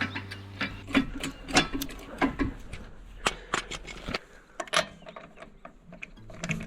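A run of irregular sharp clicks and taps, a few a second, easing off briefly around four seconds in.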